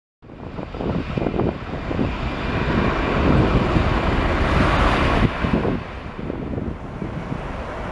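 Jet airliner engines heard across an airfield, a continuous rushing noise, with wind buffeting the microphone. The higher hiss swells and then drops away about five seconds in.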